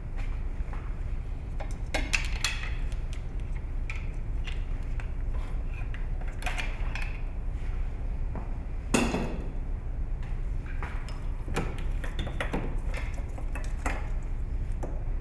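Hands working at an engine-bay wiring connector and hose under the car: scattered plastic and metal clicks and light knocks, the loudest about nine seconds in, over a steady low hum.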